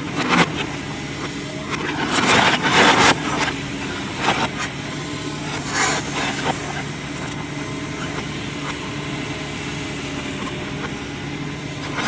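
Excavator engine running steadily, with louder rushing surges about two to three seconds in and brief ones near four and six seconds.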